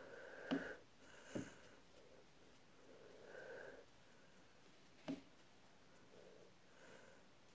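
Near silence: faint room tone with three short soft clicks or taps, about half a second, a second and a half, and five seconds in.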